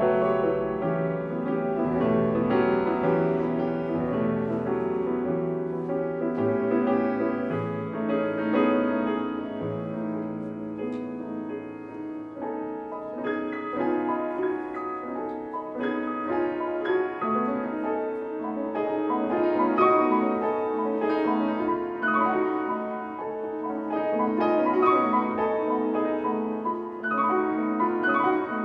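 Yamaha grand piano played solo in a classical piece: continuous chords and runs of many notes, swelling and easing in loudness.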